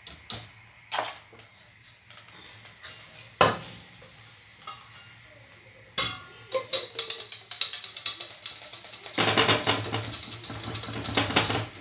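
A wire whisk knocks and scrapes against a metal pot as rice grains are stirred for puffed rice, with a few sharp clanks. From about six seconds in, the grains crackle and rattle. Near the end a dense, steady rattle follows as the rice is shaken in a metal mesh sieve over the pot.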